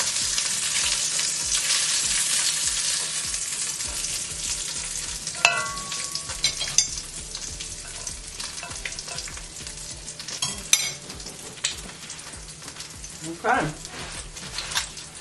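Hot food sizzling with a steady crackle that slowly fades, broken by a few light clinks about five and eleven seconds in.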